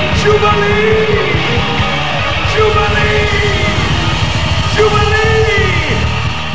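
Live gospel band and choir music, a loud full band playing the closing section of an up-tempo song, with a repeating melodic line that bends in pitch about every two seconds.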